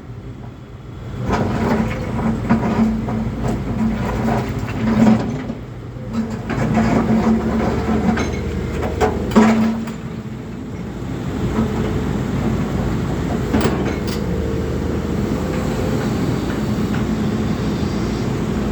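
Volvo crawler excavator's diesel engine running steadily, its pitch swelling and easing with the work, with scattered sharp metal knocks and clanks.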